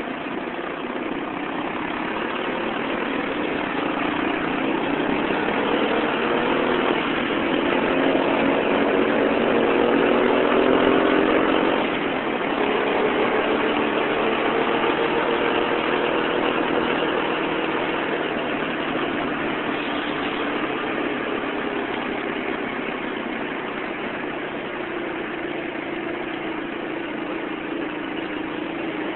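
Motorcycle engine under way, with wind and road noise. Its pitch climbs steadily and it gets louder until about eleven seconds in, then drops suddenly and holds steady at cruising speed.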